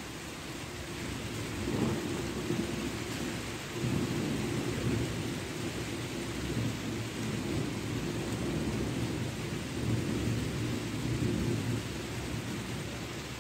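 Long roll of thunder rumbling over a steady hiss of rain. The rumble swells about two seconds in, grows stronger around four seconds, and eases off near the end.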